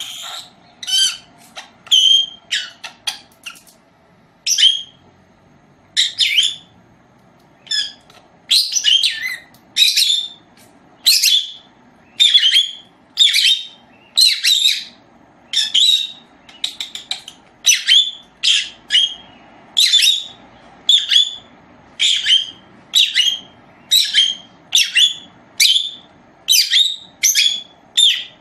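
A caged parrot giving short, shrill calls over and over, about one a second, with a brief lull about four seconds in.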